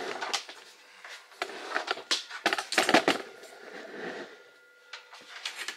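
Clicks, knocks and rattles of a 6-inch inline duct fan's parts being handled and fitted together as the fan centre is lined up with its housing, loudest in a cluster of knocks about halfway through.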